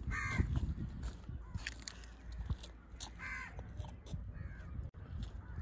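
A crow cawing twice, the calls about three seconds apart.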